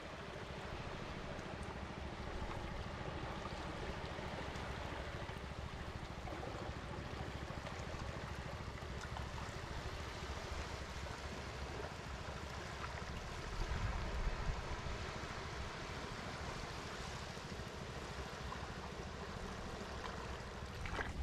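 Shallow seawater washing and trickling over rocks at the water's edge, with surf and a steady low rumble underneath, swelling briefly a little past halfway.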